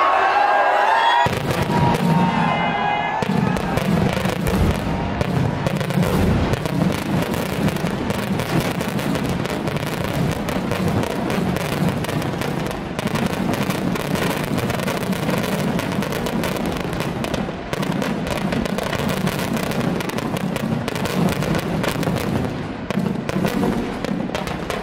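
Firecrackers packed inside a giant burning Ravana effigy going off in a dense, continuous crackle of bangs, starting about a second in and keeping up without a break.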